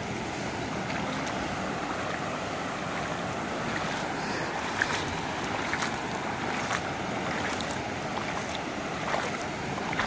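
Steady rushing noise of a swollen, flooding river's muddy water, with a few faint ticks scattered through it.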